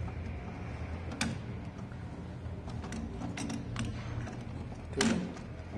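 Sharp plastic clicks and taps as a printhead cartridge is handled and pushed back into the carriage of an HP Ink Tank printer: a few separate clicks, the loudest near the end, over a low steady hum.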